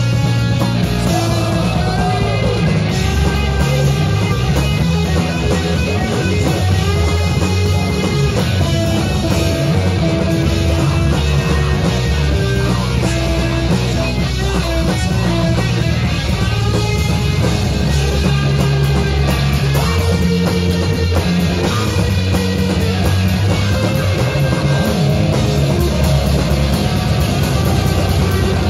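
A live metal band playing loud, continuous music: distorted electric guitars and bass over a fast-hit drum kit.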